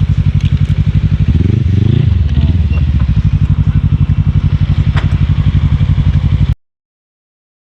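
Yamaha XMAX scooter's single-cylinder engine running under way, a steady rhythmic pulse heard close on the rider's camera, cutting off suddenly near the end.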